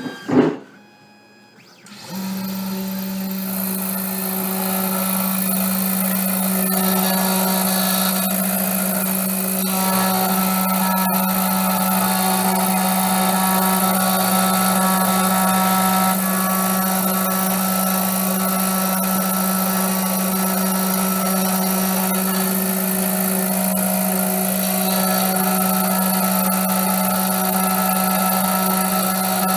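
3D Pro Xtreme key-cutting machine starting up about two seconds in after a short click, then running steadily as its cutter mills an HU66 high-security car key blank: a steady low hum with a high hiss.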